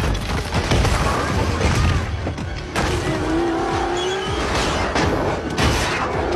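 Action-movie car-chase sound mix: a supercar's engine revving and tyres squealing, broken by repeated crashes and impacts, over music.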